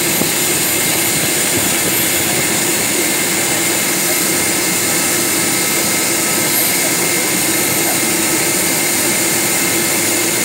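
Steady jet turbine noise from a Boeing 737 Business Jet during pushback: an even rushing roar with a constant thin high whine over it.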